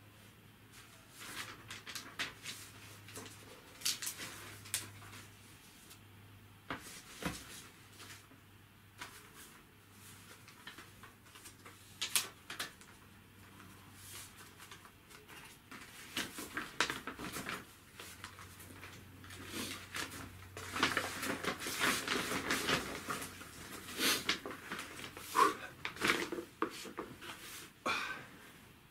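Quiet small handling noises: scattered rustles, clicks and taps from hands working with something at a desk, busiest about twenty seconds in, over a faint low steady hum.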